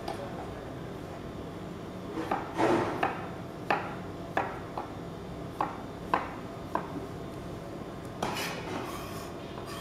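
Kitchen knife chopping watermelon into small dice on a white plastic cutting board: about ten irregular sharp knocks, then a longer scrape of the blade across the board near the end. A steady low hum lies underneath.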